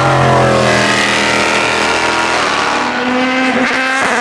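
Prototype race car engine at high revs. The pitch falls as the car slows, broken by several quick gear changes.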